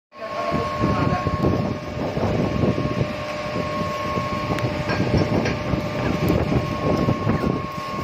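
Intermediate-frequency induction melting furnace running under power: a steady high whine over a loud, uneven rumble.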